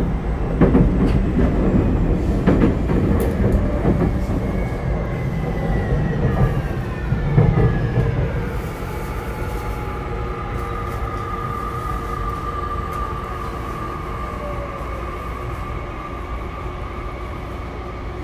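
Tokyu 5050 series electric train running, heard from inside the car. Wheels knock over rail joints in the first few seconds, and the VVVF inverter whine, which the uploader takes for a Hitachi unit, glides down in pitch about six to eight seconds in. The train then runs more quietly with a steady inverter tone.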